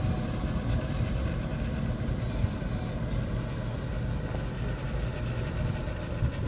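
Small motorboat engine running steadily at low speed close by.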